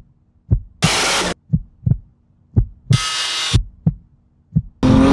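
Heartbeat sound effect: low thumps in pairs about a second apart, cut twice by short bursts of harsh noise. Near the end a loud engine rev with rising pitch begins.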